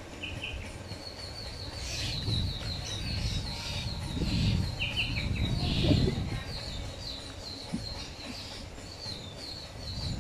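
Small birds chirping: a long, fast run of short high chirps repeating through, with a few lower paired notes now and then. Underneath, a low rumble swells twice around the middle, loudest about six seconds in.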